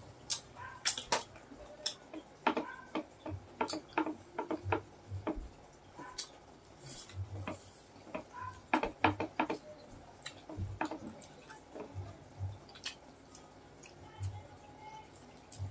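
Close-up eating sounds from two people eating pork leg with their hands: chewing and mouth smacking, heard as irregular sharp clicks, some in quick clusters, with occasional soft low thumps.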